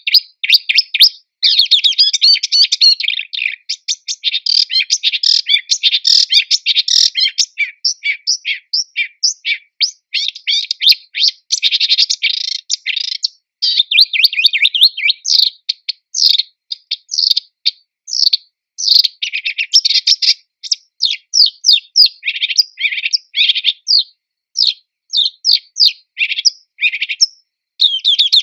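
Marsh warbler singing: a long, fast, varied run of rapid chattering and whistled notes. About halfway through it breaks into shorter phrases with brief pauses between them.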